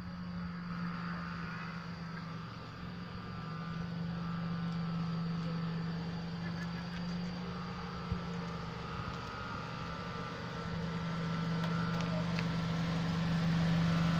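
A Datsun GO+ car's small engine running as the car drives slowly up and draws near, getting louder over the last few seconds.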